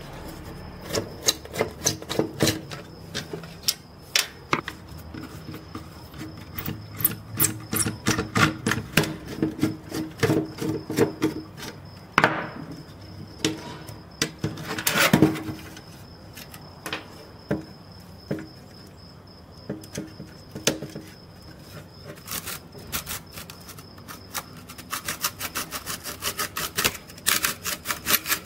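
Screwdriver turning out the screws that hold a small hand saw's plastic handle to its rusty blade: scattered metal clicks and scrapes, with a couple of louder scrapes midway and quick clicking near the end as the handle is worked loose.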